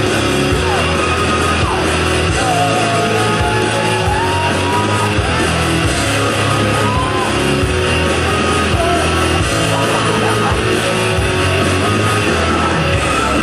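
Loud rock music with a sung vocal line over heavy bass that pulses on and off.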